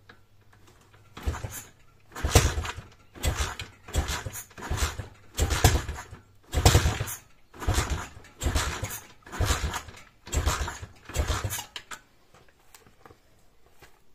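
A 140 cc YX four-stroke pit bike engine being kick-started about ten times, roughly once a second, with the choke on, turning over on each kick without catching.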